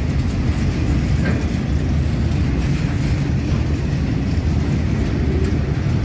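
Indian Railways covered goods wagons rolling past at steady speed: a continuous low rumble of steel wheels on the rails, with an occasional faint click.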